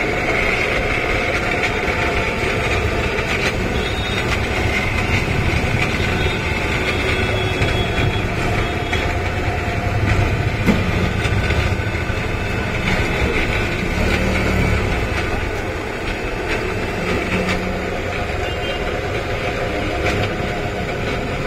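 Steady street traffic noise: engines idling and running, a continuous low rumble with a few faint clicks.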